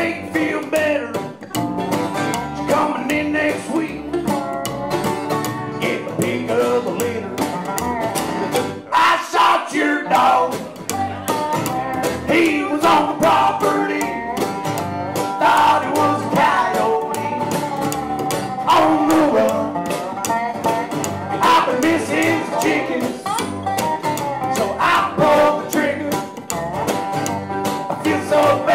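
Live acoustic string band playing an instrumental break in a country/bluegrass style: strummed acoustic guitars over a plucked upright bass, with a picked lead melody.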